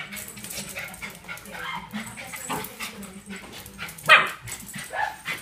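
Small poodle yipping and barking in excited play: several short calls, with one louder bark about four seconds in.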